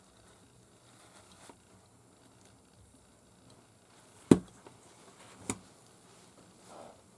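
Small hard objects being handled on a work surface: a sharp knock about four seconds in, a lighter knock about a second later, and faint ticks and rustles between them.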